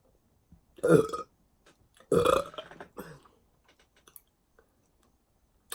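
A woman burping twice: a short burp about a second in, then a longer one at about two seconds.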